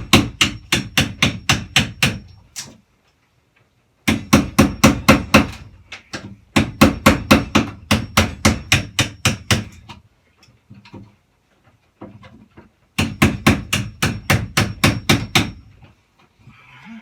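Hammer rapidly striking a wood chisel, cutting out a notch in wood: fast runs of sharp blows, about four or five a second, in several bursts with short pauses between them.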